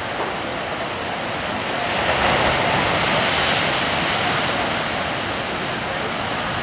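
Ocean surf washing in a steady rush, swelling louder for a couple of seconds about two seconds in.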